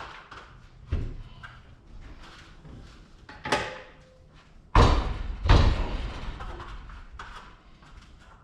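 Knocks and clunks of things being handled and set down, with a brief scrape a little past three seconds and two heavy thuds close together about five seconds in.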